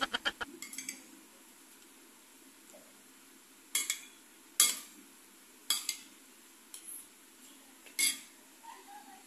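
Metal spoon clinking against a glass bowl while avocado is mashed and stirred: about five sharp clinks roughly a second apart, then a few fainter taps near the end.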